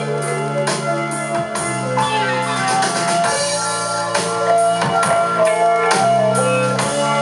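Music with a steady drum beat, guitar and keyboard, coming from a radio station played through a Fisher 800-B tube receiver.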